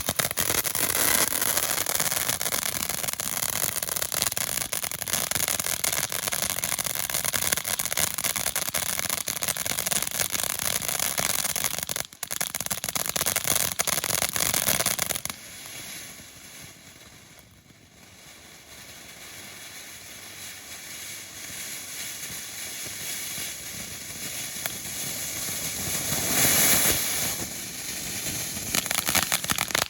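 A firework fountain spraying sparks with a steady rushing hiss and crackle. About halfway through it suddenly drops off to a quieter spray, then slowly builds back up to full strength near the end.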